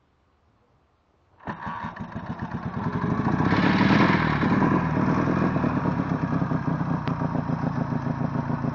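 BMW R 52's side-valve flat-twin engine kick-started, catching suddenly about a second and a half in. It revs up briefly, then settles to a steady idle with even firing pulses.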